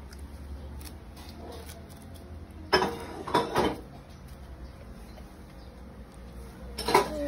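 A few brief clatters of dishes and cutlery, about three seconds in and again near the end, over a steady low hum.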